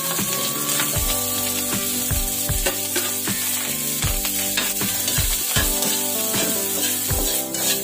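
Rice sizzling as it fries in a hot wok with garlic, stirred and tossed with a metal spoon that scrapes and clicks against the pan. Background music with a steady beat plays underneath.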